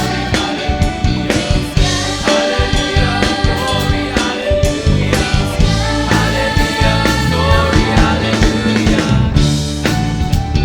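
Youth choir singing a gospel song with band accompaniment, drum kit keeping a steady beat.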